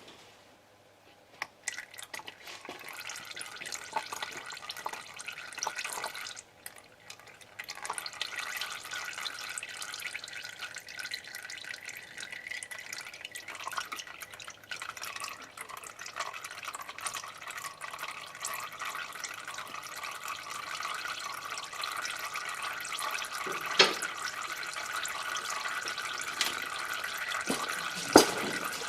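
Used motor oil pouring in a steady stream out of the 394 V8's oil pan drain hole into a drain pan, starting about two seconds in with a brief lull a few seconds later. A couple of sharp knocks near the end.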